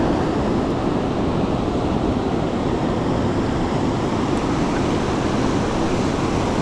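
Mountain stream water rushing: a steady, even noise with no let-up.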